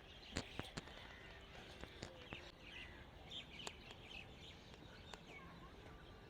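Faint bird chirps and short calls over quiet outdoor ambience, with a few sharp clicks in the first few seconds.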